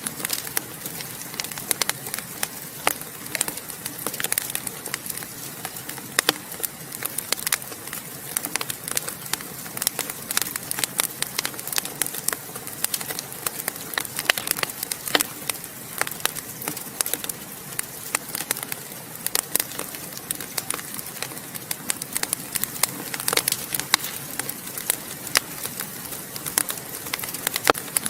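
Wood fire crackling in a fireplace: a steady hiss with frequent, irregular sharp pops and snaps.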